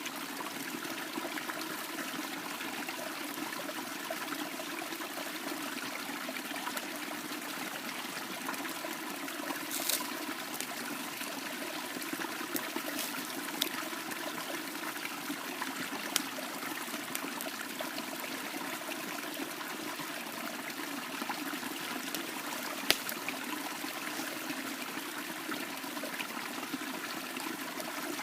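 Steady rush of running water, with a handful of sharp pops scattered through it.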